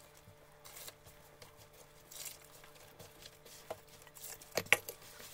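Soft, faint rustling and squishing of a hand working flour as lukewarm water is poured in to form dough, with small clicks scattered through it. A single sharp knock stands out about four and a half seconds in.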